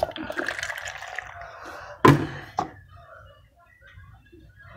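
Milk pouring from a plastic gallon jug into a cup, a splashing stream for about two seconds. Then come two sharp knocks about half a second apart.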